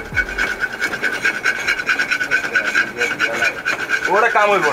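Knife blade scraping crusted residue off a round metal water-pump part in rapid, repeated strokes, rising to a squeaky scrape about four seconds in.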